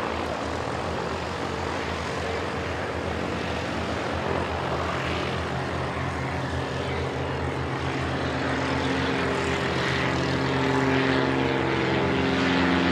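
Cessna O-1 Bird Dog's six-cylinder piston engine and propeller running at takeoff power as the plane climbs out: a steady drone that grows louder in the last few seconds as it passes overhead.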